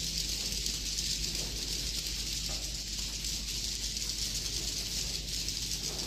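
A flock of edible-nest swiftlets chittering and clicking together inside a swiftlet house, a dense high-pitched twitter that holds steady, over a low hum.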